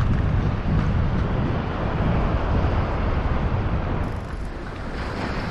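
Wind blowing on an action camera's microphone, a steady low rumble, with breaking surf on a sandy beach; it eases a little about four seconds in.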